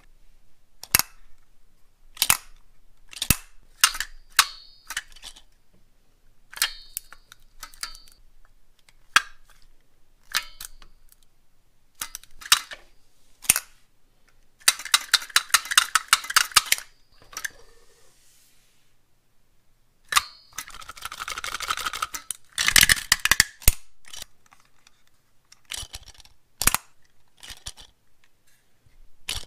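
Hard plastic toys clicking and clacking as they are worked by hand: a dinosaur lollipop holder's hinged shell snapping open and shut and a T-rex snapper-grabber's jaws clacking. Single sharp clacks come a second or two apart, with two stretches of rapid clattering, one about halfway through and another a few seconds later.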